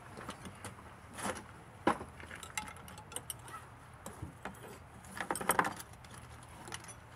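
Metal tools and gear being handled: scattered clinks, a sharp clank about two seconds in, and a short burst of jangling about five seconds in.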